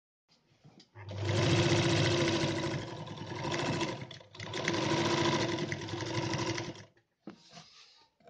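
Kehler Altenberg sewing machine stitching thick fabric with heavy thread and an industrial needle, running fast in two runs of about three seconds each with a short break between. It stops about seven seconds in, followed by a brief click and faint handling noise.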